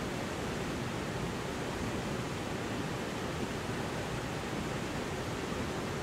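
River water rushing over rock ledges in small rapids and cascades: a steady, even rush of white water with no breaks.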